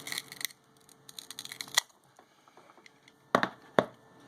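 A small tool prying and scraping under the cracked rear camera glass of an LG G5: faint scratching, a sharp click about two seconds in, then two louder short scrapes near the end.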